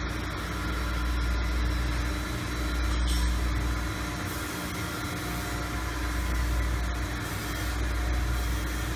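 Steady low machinery hum with an even hiss over it, the constant background drone of a machine shop.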